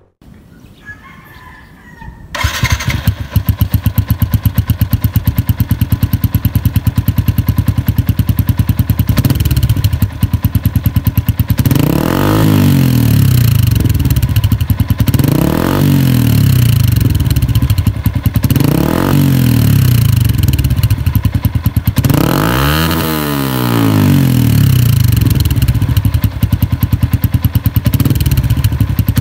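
Yamaha Sniper 150's single-cylinder four-stroke engine, breathing through a replica Akrapovic muffler canister run without its silencer insert. It catches about two seconds in and idles with a deep, bassy exhaust note. It is then blipped four times, each rev rising and falling back to idle, with the last one the highest.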